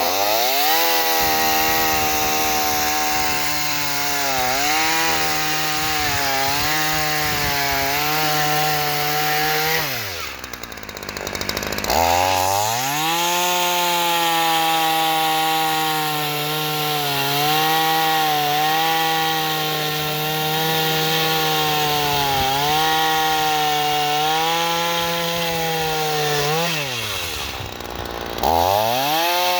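Small Ryobi two-stroke gas chainsaw running at high revs, cutting through logs, its pitch wavering under load. Twice, about ten seconds in and again near the end, the engine falls away in pitch and then revs back up.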